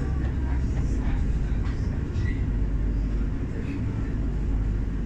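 Steady low rumble inside a moving Class 710 electric train: wheels running on the rails and the running gear under the carriage.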